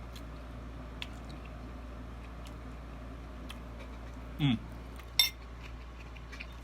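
Eating utensil clinking against a bowl with a few faint clicks, then a brief rising squeak and a sharp, loud clink about five seconds in.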